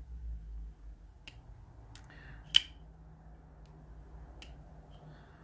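Light clicks of a Shirogorov 111 folding knife being handled, with one sharp metallic click about two and a half seconds in.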